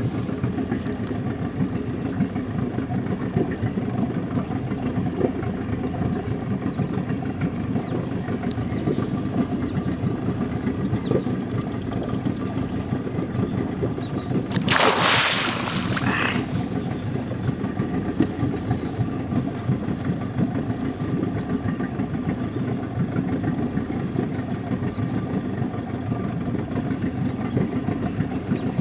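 An engine idling steadily with a low, even hum. About halfway through comes a brief splash as a large grass carp breaks the surface.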